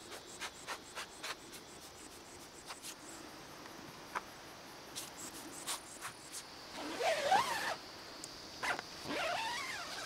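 Light clicks of 8×10 sheet-film holders being handled, then a zipper on a fabric film-changing tent pulled twice, about seven and nine seconds in. A steady insect drone runs underneath.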